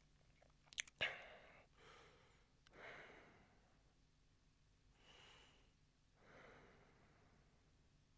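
A man's slow, heavy breathing in sleep, several faint breaths or sighs a second or so apart, with a sharp click about a second in.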